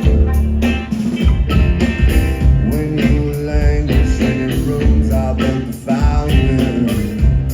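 Live band playing an instrumental opening, with drums keeping a steady beat under bass and guitar.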